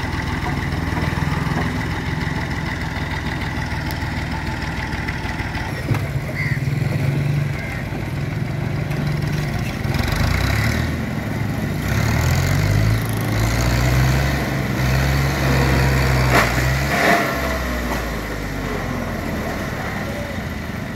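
New Holland Fiat 480 tractor's diesel engine running. Its engine note shifts up and down through the middle stretch, where a second engine, such as a passing motorcycle, joins it.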